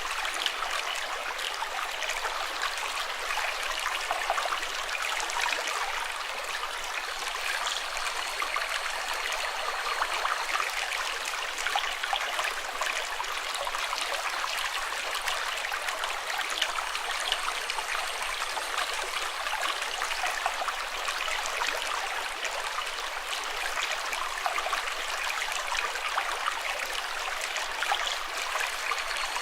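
Running water flowing steadily, a constant rushing trickle full of small splashes.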